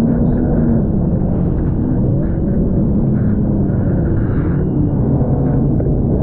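Jet ski engine running at speed, its note rising and falling a little, with water rushing and spraying against the hull as it crosses choppy wakes.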